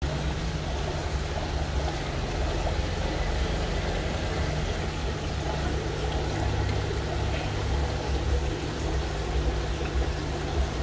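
Aquarium water pump running with a steady low hum, under a constant wash of flowing water.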